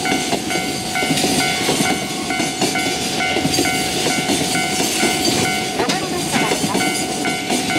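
Loaded container wagons of a freight train clattering steadily over the rails as they pass close by. A level-crossing warning bell rings in short repeating strokes, about two a second.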